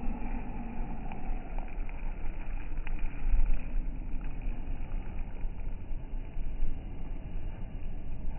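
Wind buffeting a phone's microphone: a gusty, uneven low rumble, strongest about three and a half seconds in.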